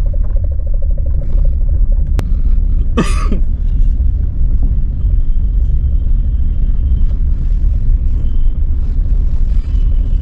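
Steady low rumble of road and engine noise inside a moving car's cabin. About three seconds in, a brief sharp sound cuts across it.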